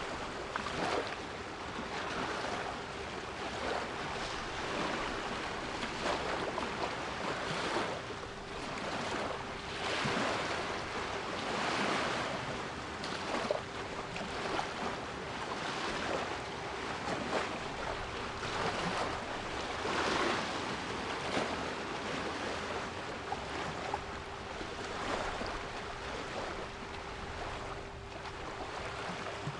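Sea waves washing in, swelling and falling every few seconds, with a steady 396 Hz pure tone held underneath.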